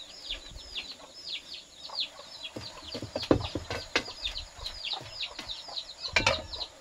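Birds chirping in a fast, repeated series of high calls, each falling in pitch, several a second. A few sharp knocks of the metal wok lid and spatula against the pan, the loudest near the end.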